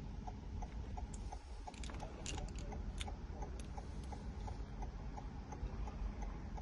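Steady light ticking, about three ticks a second, with a few sharper clicks about two to three seconds in.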